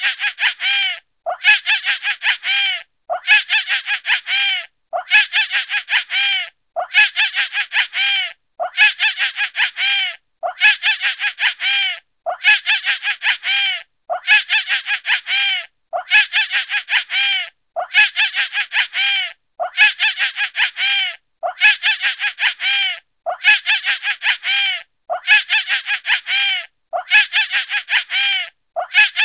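Monkey laughing: a rapid run of about eight to ten high-pitched chattering calls, the same bout repeating about every two seconds.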